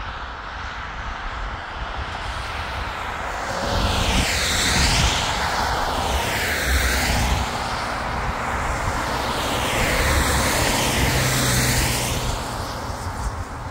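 An aircraft flying overhead, its engine noise swelling from about four seconds in and easing off near the end, with a shifting, swirling whoosh.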